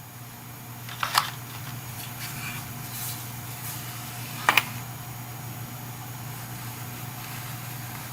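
Small plastic stamps being handled: two sharp clicks, about a second in and again about four and a half seconds in, with light rustling between, over a steady low hum.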